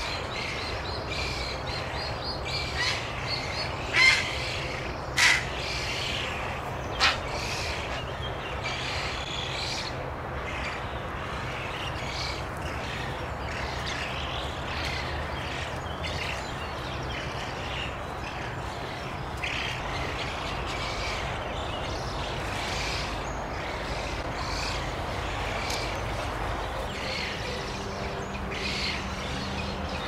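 A chorus of young Eurasian spoonbills calling at the nest, many short repeated begging calls for food, with three louder sharp calls about four, five and seven seconds in, over a steady low rumble.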